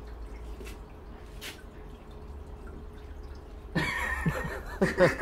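Quiet room hum with a few faint ticks, then a person chuckling in short repeated bursts during the last second and a half.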